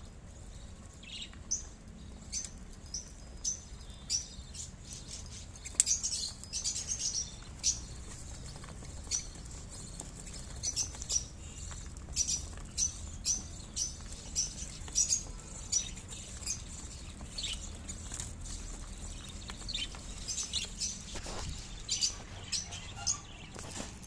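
A flock of budgerigars chirping off and on in short, high calls, with wing flutters, as they feed on soaked black chickpeas. The calls come irregularly throughout, the loudest about six seconds in.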